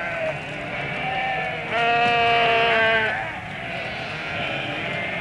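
A flock of sheep and goats bleating, several calls overlapping, with one long, loud bleat lasting over a second about two seconds in.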